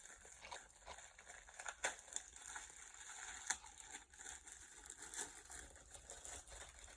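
Packaging being handled and opened: faint, irregular crinkling and rustling, with a few sharper crackles, the clearest about two seconds in and about halfway through.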